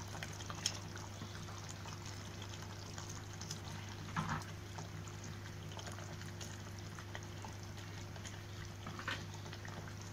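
Stingray-fish curry simmering in a pot with faint bubbling, as pieces of fish are dropped in by hand with a few soft plops, the clearest about four seconds in, over a low steady hum.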